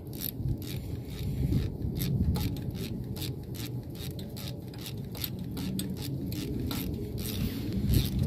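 Ratchet wrench with a spark-plug socket and extension clicking in short irregular runs as a new spark plug is tightened into the engine, over a steady low rumble.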